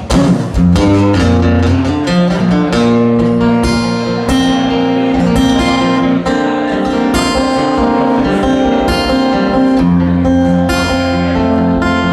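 Live instrumental passage of a song: acoustic guitar strummed in chords over held low notes, with no singing.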